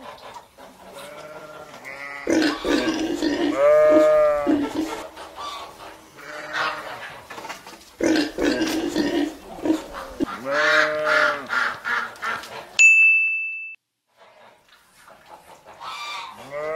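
A pig calling several times in a row. About thirteen seconds in, a short steady high beep cuts in, followed by a brief silence, and a new animal call starts near the end.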